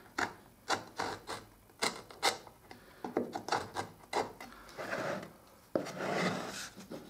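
Homemade wooden marking gauge drawn along the edge of a wooden board, its point scratching a line into the wood in a run of short scraping strokes, with a few longer rubbing strokes near the end.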